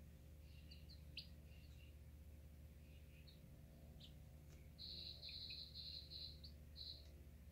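Young chickens peeping softly as they are stroked, in short high chirps, with a quick run of about five louder chirps a little past halfway.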